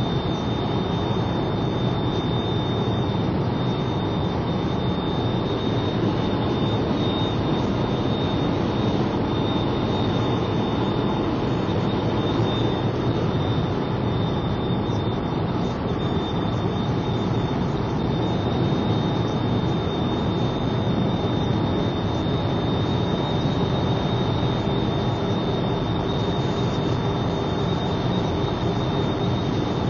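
Skoda Octavia making a steady high-pitched whistle, one unchanging tone, over a constant din of engine and road noise.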